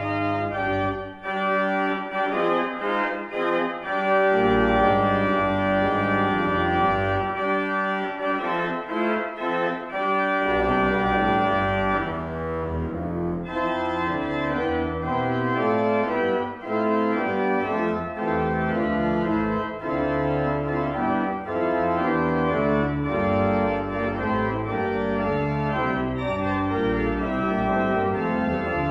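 Lewis pipe organ playing a galliard in full chords. The deep pedal bass drops out twice and comes back in.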